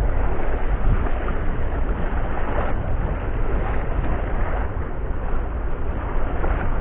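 Wind buffeting the microphone: a steady, rumbling rush of noise with an uneven level and no clear pitch.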